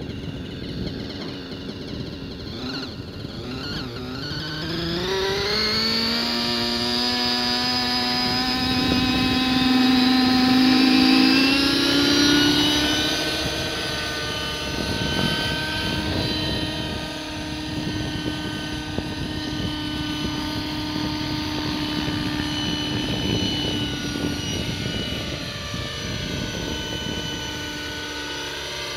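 Align 600-size nitro RC helicopter's glow engine and rotor spooling up, the pitch rising steeply over a few seconds about two seconds in, then running at a steady high head speed with small wavers in pitch.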